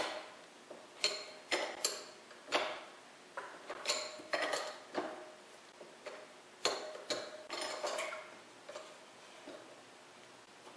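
Metal wrench clicking against a brass air-hose connector as it is fitted and turned to tighten the connection on the hose reel: about a dozen irregular sharp metallic clicks that die away a couple of seconds before the end.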